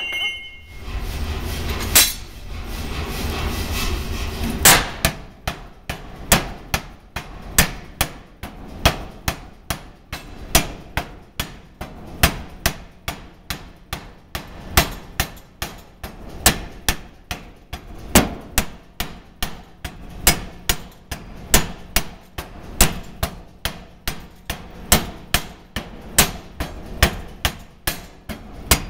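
5cwt Massey pneumatic power hammer striking hot 4140 steel held on its dies, drawing out an anchor-bolt shank. After a low rumble and a couple of single blows, about five seconds in it settles into a steady run of evenly spaced, sharp metal-on-metal blows.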